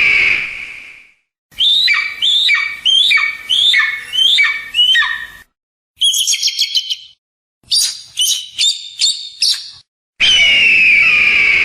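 Eagle calls: a long harsh scream, then a run of about seven sharp whistled notes that each sweep down in pitch, then fast high chittering. The scream comes again near the end. Each call starts and stops abruptly.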